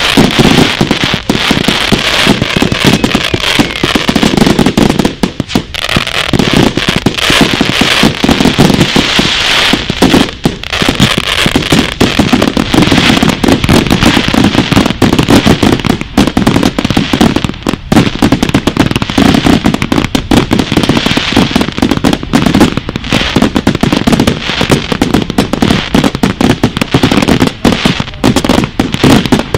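Firework cakes firing a rapid, dense barrage of loud bangs and crackling, with only brief lulls.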